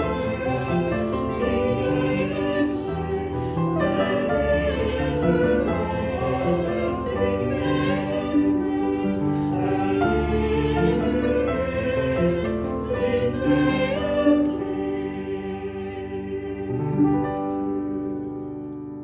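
Choir singing a sacred song with music underneath, the sound fading out near the end.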